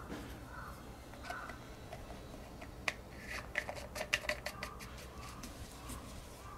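Hard plastic clicks and rattles as a black plastic hose coupling is screwed onto the threaded end of a Kärcher pressure washer's water filter. The clicks come in a quick cluster lasting about two seconds in the middle.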